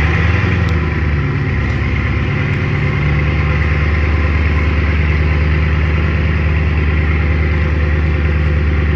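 Bugatti Divo's quad-turbo W16 engine idling steadily, wavering a little for the first few seconds and then holding an even idle.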